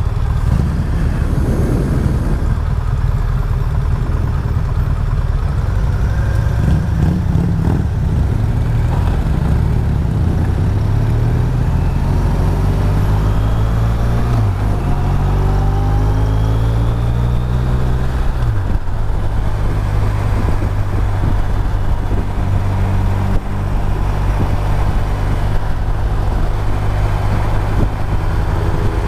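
A 2014 BMW R1200RT's boxer twin engine pulls away and accelerates, its pitch climbing through the gears. There are upshifts about halfway through and again a few seconds later, then it runs steadily at cruising speed.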